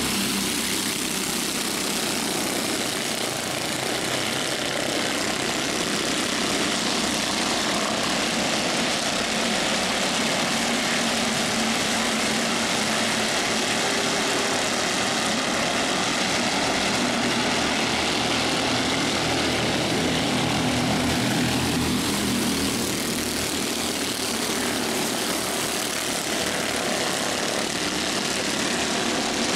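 A field of Mini Cup race cars lapping an oval track, their engines running together in a steady, unbroken din.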